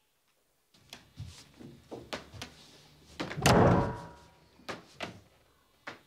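A few footsteps and light knocks, then a door slammed hard about three and a half seconds in, ringing briefly, followed by a few more knocks.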